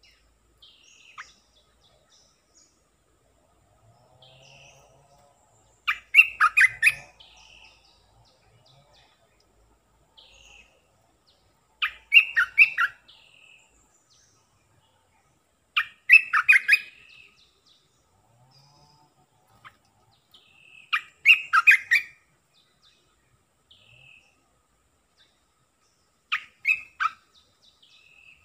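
Olive-winged bulbul singing: five short, loud song phrases, each about a second long, coming roughly every five seconds, with fainter single calls in between.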